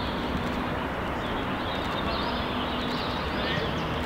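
Steady outdoor background noise with faint, indistinct voices mixed in.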